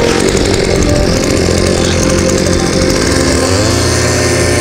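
Small 52 cc two-stroke engine of a Carver T-300 mini-cultivator running steadily at low revs, then revving up near the end as it is put to work on hard, packed soil.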